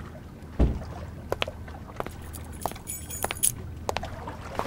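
A bunch of keys jangling, with scattered light clicks and a jingling cluster about three seconds in, and one dull thud about half a second in, the loudest sound here.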